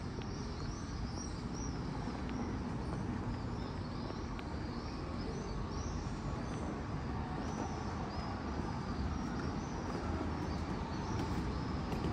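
Outdoor street ambience: a steady low hum of traffic with small birds chirping over and over above it.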